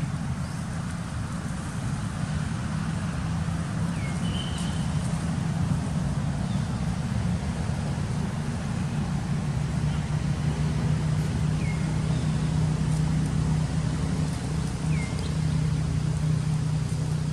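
Steady low motor hum, like an engine running nearby, with a few short high chirps over it.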